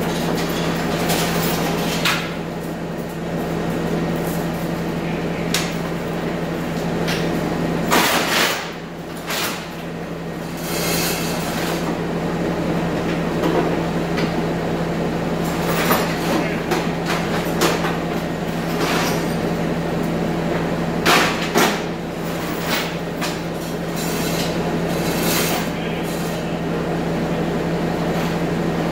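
Bobcat compact track loader's diesel engine idling with a steady hum, under repeated metal clanks and knocks, with louder clatters about eight seconds in and again about twenty-one seconds in.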